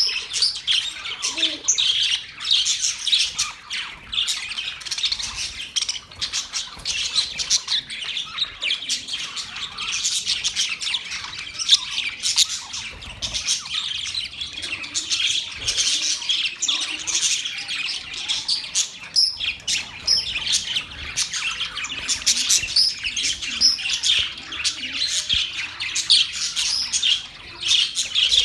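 Budgerigars (pet parakeets) chattering and warbling continuously, a dense mix of quick chirps, trills and squawks from several birds at once.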